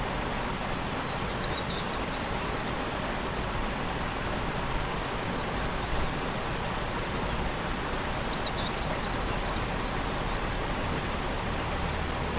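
Waterfall rushing steadily, a constant wash of falling water. A bird chirps briefly a few times over it, about a second and a half in and again about eight and a half seconds in.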